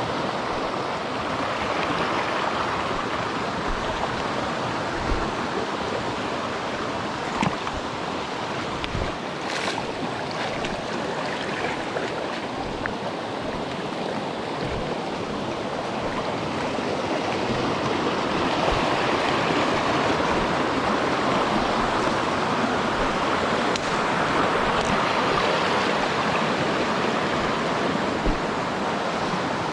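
Mountain stream rushing steadily over rocks, a dense, even water noise that swells a little in the second half.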